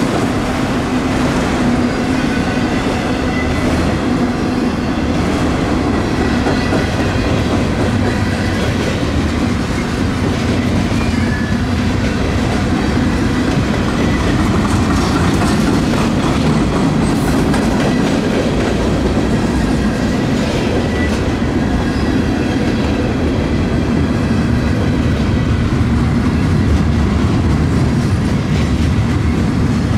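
Freight cars of a manifest train rolling past at speed, a steady rumble with the wheels clacking over the rails.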